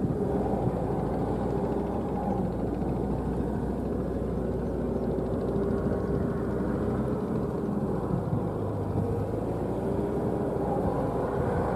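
Diesel engine of a crawler-track rice-paddy tilling machine running steadily under load as it works a flooded field.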